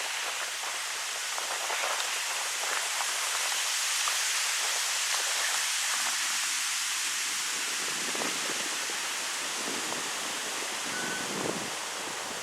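Wind rustling through birch trees: a steady leafy hiss like rain, with a few stronger gusts near the end.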